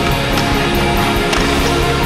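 Loud music soundtrack with a steady, driving beat.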